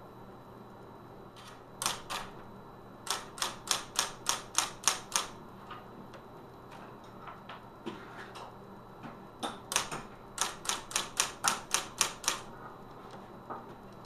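Smith Corona electric typewriter typing: sharp key strikes in two quick runs of about nine each, one around three seconds in and one around ten seconds in, with a few single strikes between and near the end.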